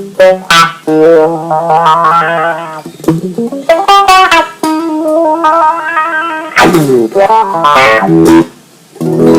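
Clean electric guitar played through a Dunlop Cry Baby 535Q wah pedal on its third range mode, with picked notes and chords whose tone sweeps as the wah is rocked. The playing drops out briefly near the end.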